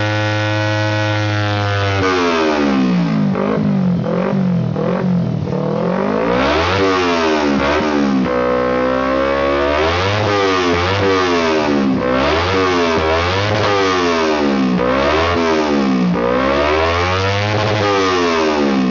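Engine with an aftermarket exhaust idling steadily, then from about two seconds in revved again and again, the revs climbing and dropping every second or two.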